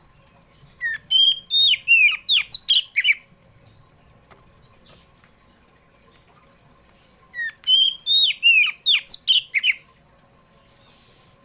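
Oriental magpie-robin (kacer poci) singing two loud phrases of quick, sharply falling whistled notes. The same phrase is repeated about six seconds apart.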